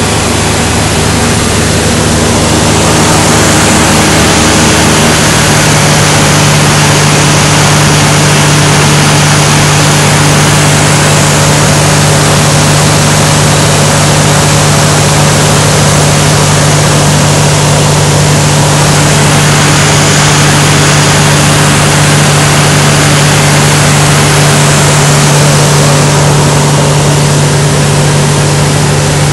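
Engine and propeller of a single-engine light aircraft, a loud steady drone with rushing air, heard from inside the cockpit. The engine note grows stronger about five seconds in.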